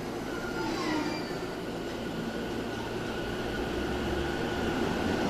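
E231 series electric train moving at the station platform: a steady rumble with a steady high-pitched tone, a short falling whine about a second in, and growing slowly louder toward the end.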